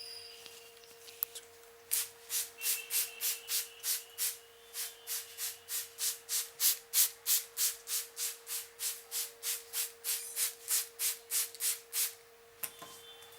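Hands rubbing briskly back and forth over a head during a head massage: a rapid, even run of rubbing strokes, about three a second. It starts about two seconds in and stops shortly before the end.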